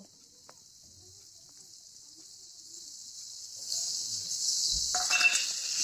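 Spice paste frying in hot oil in a wok: a faint hiss that gets much louder about four seconds in. A knock comes just before five seconds, and the sizzle is louder and fuller after it.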